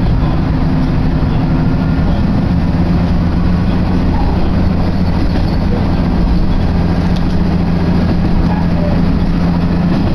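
Steady running drone of a diesel railcar, heard from inside the passenger cabin: a low engine hum over the even rumble of wheels on the rails, holding constant while the train travels.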